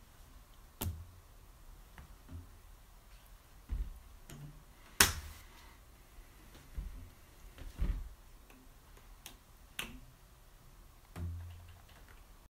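Scattered sharp taps and dull knocks, the loudest about five seconds in, as a cat bats at a toy hanging on a string from a doorknob and knocks it against the door.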